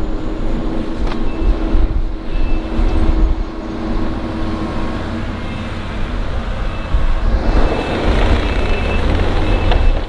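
Diesel engines of Kubota snowplowing machines running under load, with a short high reversing beep sounding at intervals. From about seven and a half seconds a harsher rushing noise builds over the engine.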